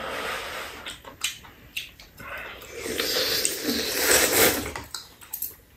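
Slurping kalguksu noodles, with a long, loud slurp from about three seconds in and a few short clicks before it.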